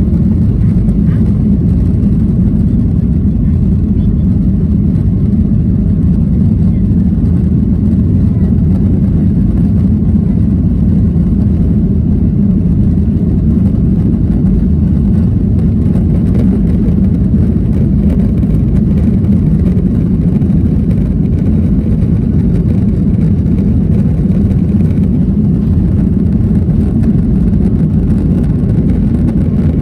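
Cabin noise of a Boeing 737-900ER on its takeoff roll: the CFM56 turbofan engines at high power with the rumble of the wheels on the runway, heard inside the cabin as a steady, loud, deep noise.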